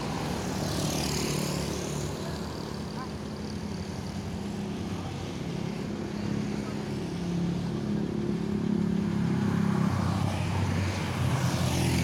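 Large bus's diesel engine idling with a steady low hum. A vehicle passes close by on the road about a second in, and another near the end.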